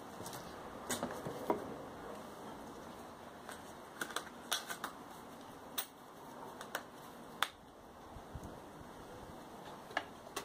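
Scattered light clicks and knocks of tools being picked up and handled, a dozen or so short sharp taps with no steady rhythm.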